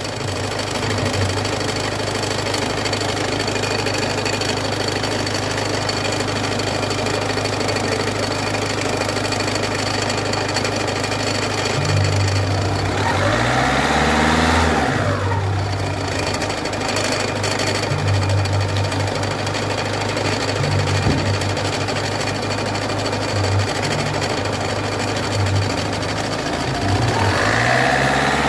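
Peugeot 206 1.4 HDi four-cylinder diesel engine running with a loud knocking noise from a damaged crankshaft pulley. The engine note swells up and back down twice, about halfway and near the end.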